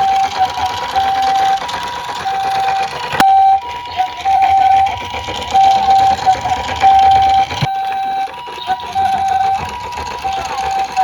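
Electronic two-tone hi-lo siren of a toy emergency vehicle, alternating steadily between a high and a low tone about once a second. Two sharp clicks come about a third and two-thirds of the way in.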